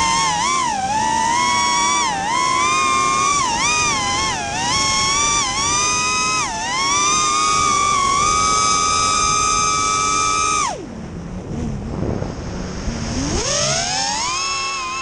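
Four brushless motors of a 5-inch FPV racing quadcopter (Racestar BR2205 2600KV on three-blade props) whining, heard from the onboard camera, the pitch rising and falling with the throttle. About two-thirds of the way in the whine drops away suddenly as the throttle is cut, leaving a rush of air. Near the end it glides back up as the throttle returns.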